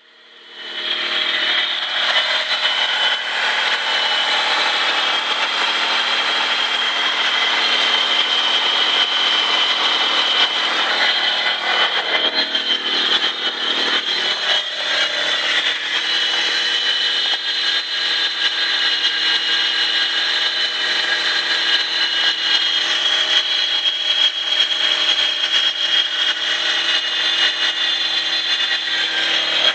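Dodge Stealth R/T Twin Turbo's twin-turbo V6 running with a steady high-pitched whine over the engine noise. The owner is pretty sure it is a belt tensioner, most likely the lower alternator/AC tensioner.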